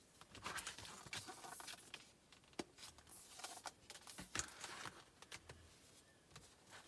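Hands handling a cardboard board book: faint rustling and scraping with a few sharp taps as the book is lifted and its stiff cover opened.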